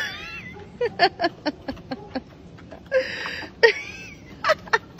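A person laughing in quick rhythmic bursts, with high wavering squeals and a wheezy breath in about three seconds in.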